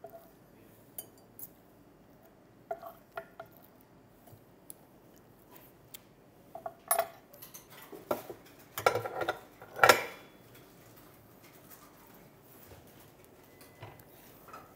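Scattered snips, clicks and metallic clinks as a roast duck carcass is cut into pieces with kitchen scissors and a fork on a wooden board, and the pieces are packed into the brass cylinder of a duck press. The loudest clatter comes about nine to ten seconds in.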